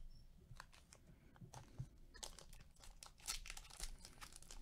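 Foil wrapper of a trading-card pack crinkling and tearing as it is opened by hand, faint. A few light clicks come first, then denser crinkling from about two seconds in.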